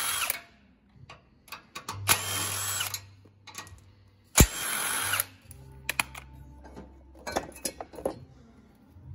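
AEG cordless impact wrench with a socket spinning bolts out of a steel bumper bracket in short runs: one run ends just after the start, then two more of about a second each. A few light clicks follow near the end as the loosened bracket is handled.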